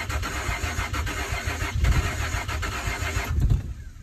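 Truck engine cranked over by the starter with a pulsing churn, surging louder twice. The cranking stops about three and a half seconds in without the engine catching, on a start attempt after a fuel pump and filter replacement.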